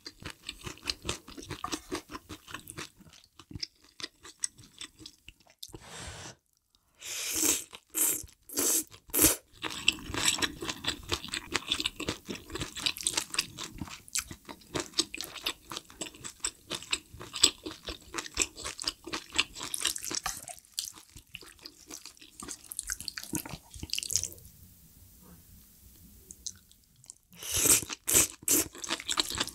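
Close-miked eating of malatang hot pot: wet chewing of soup-soaked ingredients, with runs of loud slurps of broth and noodles from a wooden spoon about seven seconds in and again near the end.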